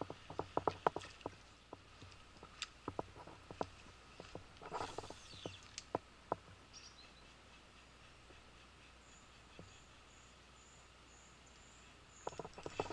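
Sharp, irregular clicks and ticks of spinning tackle being worked, clustered in the first few seconds, with a brief rushing swish about five seconds in. A quieter stretch follows, and louder clicking and rustling start again near the end.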